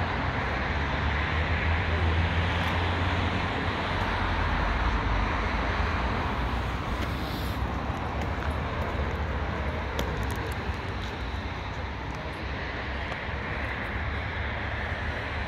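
A car engine running at low revs nearby: a steady low rumble that is strongest for the first six seconds or so and then eases, over open car-park noise.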